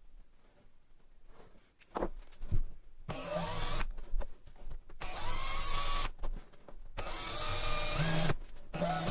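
Electric drill with a small bit boring a pilot hole through a boat's bulkhead, run in four short bursts, each spinning up with a brief rising whine, after a couple of light knocks.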